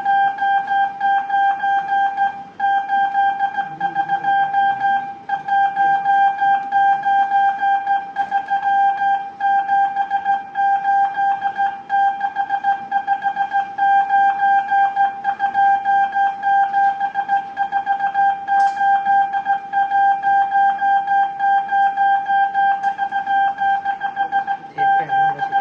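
Morse code sidetone keyed by hand on a telegraph key: a single steady beep switched rapidly on and off in dots and dashes, sending groups of numerals in a continuous stream with a few short breaks between groups.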